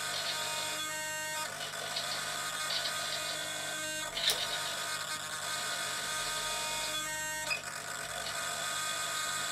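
Radio-control servo whining in short stretches as it drives the aileron linkage of a quarter-scale Tiger Moth model wing, the clearest about a second in and again about seven seconds in, over a steady hiss.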